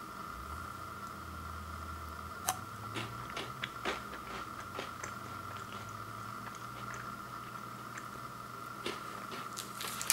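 Someone chewing a bite of a chocolate-covered Kit Kat wafer bar: scattered crisp crunches and clicks, thickest around the third and fourth seconds and again near the end, over a steady faint hum.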